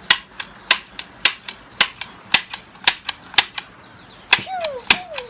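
Plastic trigger of a toy web-and-water blaster clicking over and over as it is fired repeatedly: about two sharp clicks a second, each followed by a fainter click, with a short pause past the middle.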